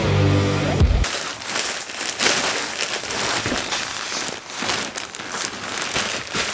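Plastic wrapping on a roll of flooring underlayment crinkling and crackling as it is handled close to the microphone. A music sting ends about a second in.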